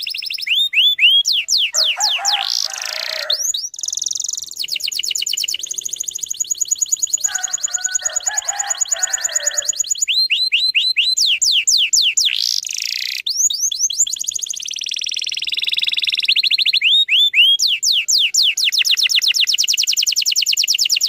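Domestic canary singing a long song of rapid trills, each phrase a fast run of repeated rising notes, switching to a new phrase every second or two. Twice a lower, rougher chattering passage breaks in.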